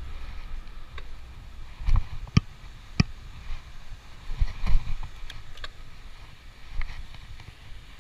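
Bicycle ride: wind rumbling on the microphone, with a handful of sharp knocks and rattles. The loudest knocks come about two to five seconds in.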